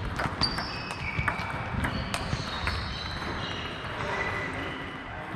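Table tennis ball clicking sharply off bats and table during a rally, several hits in the first two to three seconds, then fewer and fainter clicks from other tables. A few short high squeaks run among the clicks.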